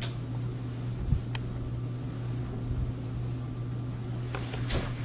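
A steady low hum with a soft thump and a sharp click a little over a second in, and a few light clicks near the end.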